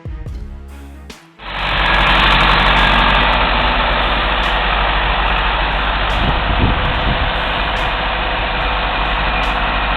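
Heavy diesel engine of logging machinery running steadily, loud with a deep low rumble. It starts abruptly about a second and a half in, after a short stretch of music.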